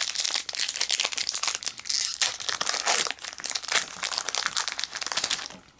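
Foil wrapper of a Pokémon trading card booster pack crinkling as it is torn open by hand. The rustling stops shortly before the end.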